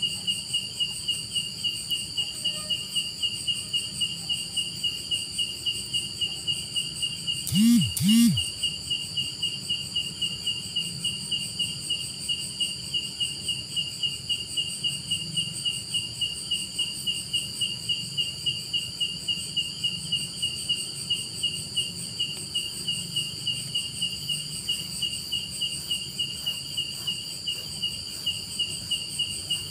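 Insects chirping: one chirping in a steady, fast rhythm of about three or four chirps a second, over a steady higher-pitched buzz from others. About eight seconds in come two loud, short, low sounds half a second apart.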